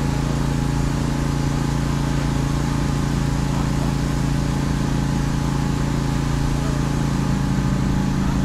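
Pressure washer running on the wheels of a semi truck: a steady engine drone under a constant hiss of water spray.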